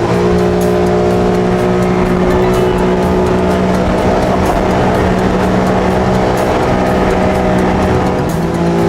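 Jet car boat's engine running steadily at speed on the water, a loud constant drone, with background music playing along.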